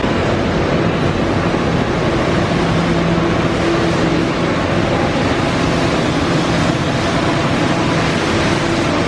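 Steady factory machinery noise: a loud, even rush with a few faint steady hum tones running through it.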